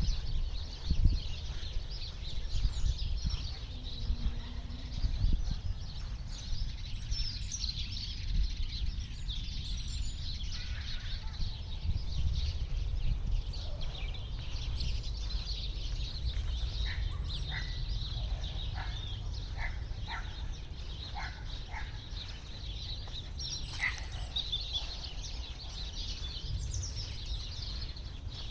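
Several small birds chirping and twittering over a steady low rumble, with a run of short repeated call notes in the second half.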